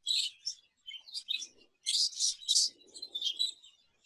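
Exhibition budgerigars chirping and chattering: a run of short, high chirps coming in clusters with brief pauses between them.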